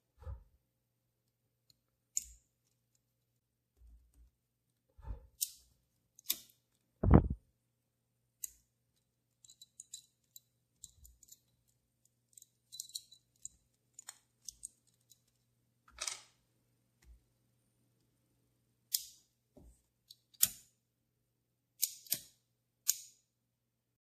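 Small scattered metal clicks and ticks from a vintage Ronson gas lighter being handled and worked on by hand, with one low thump about seven seconds in.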